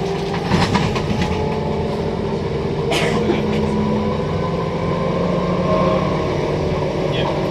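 Inside a Transperth A-series electric multiple unit under way: low rumble with the steady whine of its electric traction equipment. A few sharp clicks and rattles, the loudest about three seconds in.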